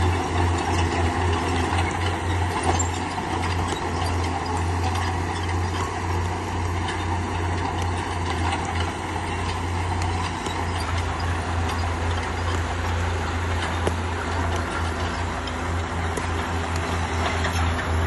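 Heavy diesel earthmoving machine running steadily: a deep constant engine drone with scattered clanks and clicks over it.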